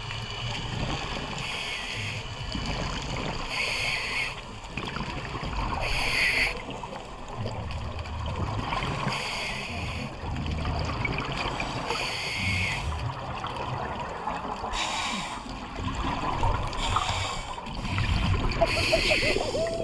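Scuba regulator breathing heard underwater: a short hiss of inhalation every two to three seconds, alternating with low rumbling bursts of exhaled bubbles.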